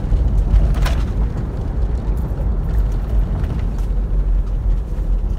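Steady low rumble of a moving car's engine and tyres heard from inside the cabin, with a single short click about a second in.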